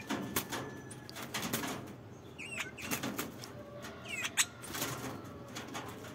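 Caged bird fluttering against the wire mesh of its cage: a run of quick flaps and light taps, with short, high, down-slurred chirps about two and a half and four seconds in.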